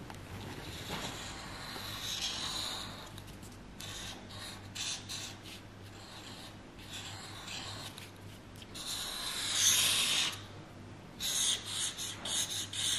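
Felt-tip marker drawing on thin cardboard: the tip scratches across the card in separate strokes with short pauses between lines, and the longest, loudest stroke comes toward the end.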